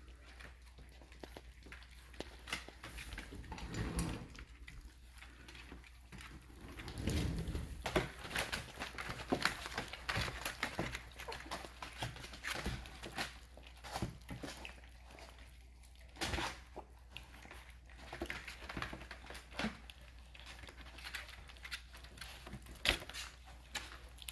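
A litter of American bully puppies eating: many small scattered clicks, taps and smacking sounds, busier in patches, over a low steady hum.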